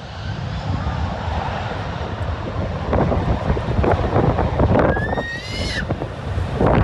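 Airbus A330 jet engines at takeoff power: a noisy rumble growing louder, with wind on the microphone. A brief rising whistle-like tone comes about five seconds in.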